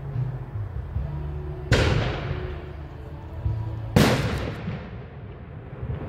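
Two firework bangs about two seconds apart, each trailing off in an echo for about a second, over music playing in the background.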